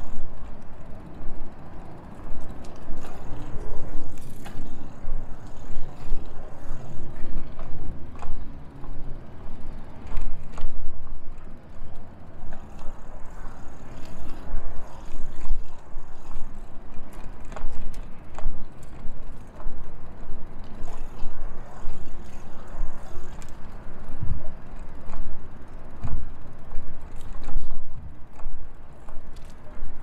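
Wind rumbling and buffeting on the microphone of a camera riding on a moving bicycle, surging and easing every second or so, with a few brief knocks.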